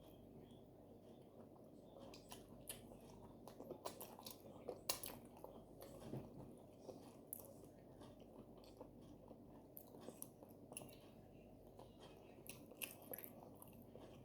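Close-up mouth sounds of someone eating oat fufu with okra soup: chewing with irregular sharp clicks, starting about two seconds in.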